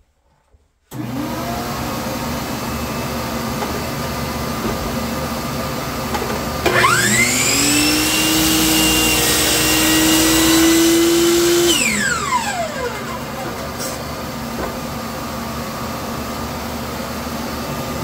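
A dust-extraction vacuum hooked to the saw switches on about a second in and runs steadily throughout. About seven seconds in, a Hitachi miter saw's motor spins up with a rising whine and crosscuts a wooden board. It winds down with a falling whine about five seconds later while the vacuum keeps running.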